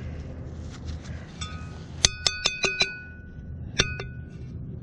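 Shards of old glass and pottery clinking together as they are handled. There is one faint clink, then a quick run of about six ringing clinks, then a single clink near the end.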